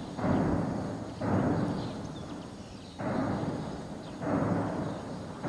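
Heavy weapons fire in a city street battle: four sharp, deep booms roughly one to two seconds apart, each trailing off in a long echo among the buildings.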